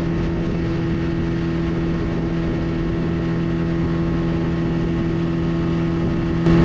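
Speed boat engine running steadily at speed, a constant hum over the rush of wind and water; it gets a little louder near the end.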